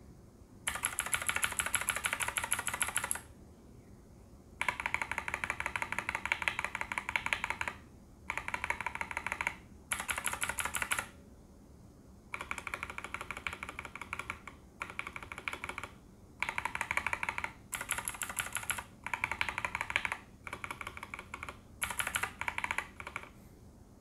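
Fast typing on a K87 tenkeyless mechanical keyboard fitted with Gateron KS3 Black linear switches and PBT dye-sub OEM-profile keycaps. The keystrokes come in about ten quick runs of one to three seconds, with short pauses between them.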